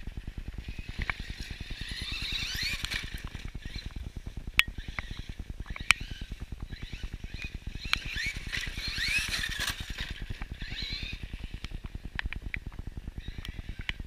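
Electric drivetrain of an Axial Yeti XL RC truck whining as it speeds up along the street, rising in pitch in two spells, with a couple of sharp clicks in between.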